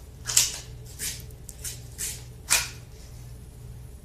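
Daisy 117 Targeteer BB pistol being handled between shots: a string of about five short, sharp clicks and scrapes over two and a half seconds, the loudest about half a second in and about two and a half seconds in.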